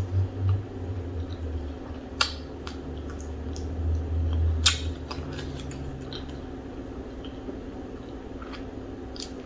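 Close-miked wet mouth sounds of someone chewing fufu with okra soup and fish, with a few sharp smacking clicks, the loudest near the middle, over a low steady hum.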